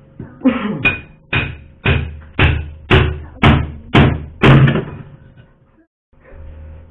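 Hammer blows knocking thick built-up ice loose inside a freezer: about nine sharp strikes, roughly two a second, the last ones the loudest.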